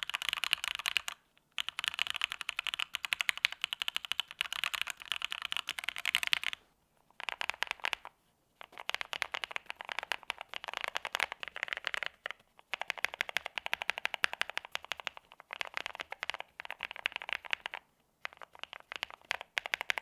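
Fast typing on a custom mechanical keyboard: rapid clicking keystrokes in long runs, with short breaks about a second in, around 7 and 8 seconds in, and near 18 seconds in.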